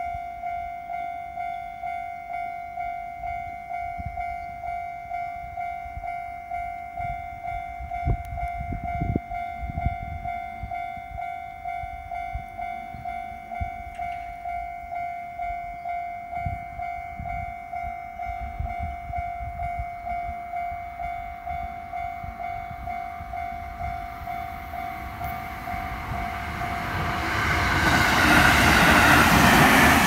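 Japanese level-crossing alarm ringing its repeated electronic bell tone, warning that a train is coming. Near the end an electric commuter train runs over the crossing, and its wheel-on-rail noise swells quickly to the loudest point.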